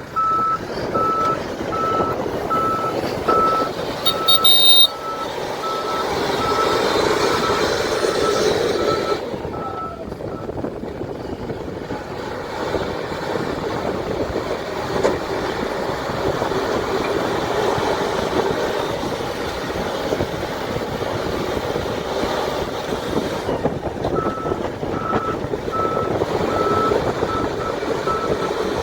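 LiuGong 777A backhoe loader's Deutz-Weichai diesel engine running under load, with its reversing alarm beeping at a steady single pitch for about the first ten seconds and again near the end, as the machine backs up.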